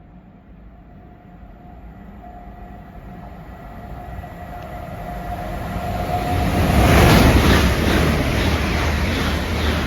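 Two coupled Class 387 electric multiple units approaching and passing at speed. A faint steady whine grows louder to a peak about seven seconds in, then the rush and rhythmic clatter of wheels on the rails carry on as the carriages go by.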